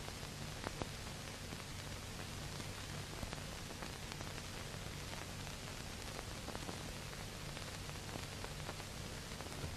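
Steady hiss of an old optical film soundtrack, with scattered faint crackles and a low hum underneath.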